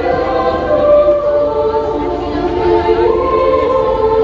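A choir singing held chords, several voices at once, with the notes changing about a second in and again near three seconds.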